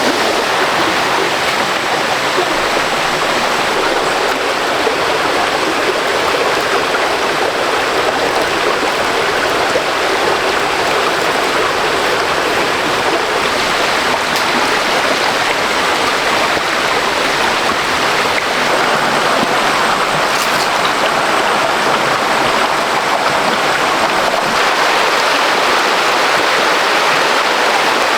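Rushing water of a stream over rapids, a steady loud rush.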